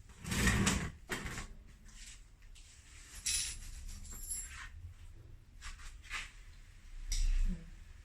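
Irregular handling noises from a fridge door repair: a few short knocks, clunks and scrapes of tools and parts being moved and set down, the loudest about half a second in and a dull thud near the end.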